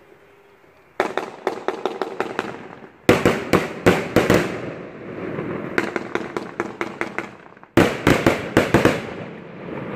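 Fireworks going off: several volleys of rapid sharp bangs and crackles, the first starting about a second in, with a rumbling echo lingering between volleys.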